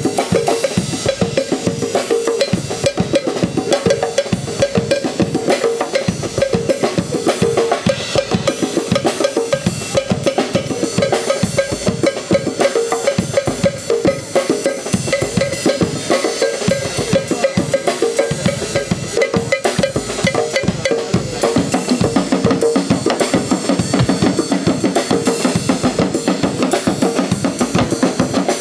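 Band music driven by a drum kit keeping a steady, busy beat, with sustained instrumental notes over it.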